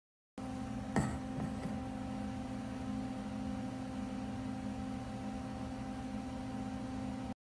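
A steady hum of several low tones held unchanged, with a single sharp knock about a second in and two faint ticks just after.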